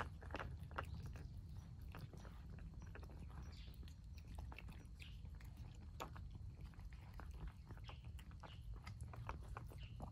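Cats chewing and lapping wet food from bowls: a steady run of small, irregular wet clicks, over a faint low rumble.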